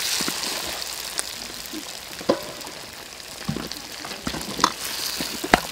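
Chili curry paste sizzling in hot oil in a steel wok, stirred with a wooden spatula that scrapes and knocks against the pan a few times.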